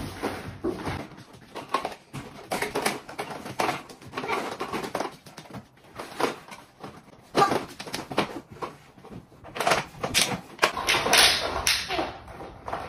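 Irregular clatter and knocks of plastic toys being picked up and packed into a bag, with rustling of plastic and fabric. The rustling gets denser and louder in the last couple of seconds.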